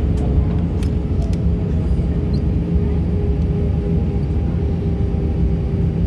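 Cabin noise inside a taxiing Airbus A321: a steady low rumble with a steady jet-engine whine over it. A few light clicks come in the first second and a half.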